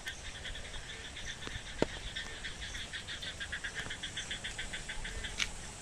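Frogs calling in a fast, even chorus of short pulses during heavy monsoon rain, with a sharp click about two seconds in and another near the end.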